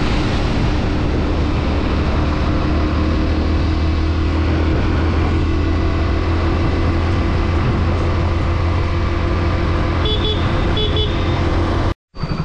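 Motorcycle engine running steadily at cruising speed, with wind and road noise over the microphone. About ten seconds in come two short pairs of high electronic beeps, and near the end the sound cuts out abruptly.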